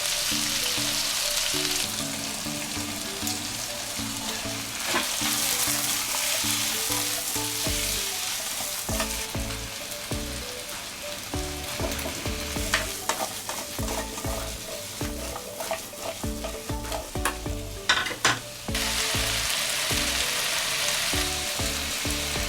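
Food sizzling in a frying pan, with a utensil stirring and a few sharp clicks against the pan, over background music.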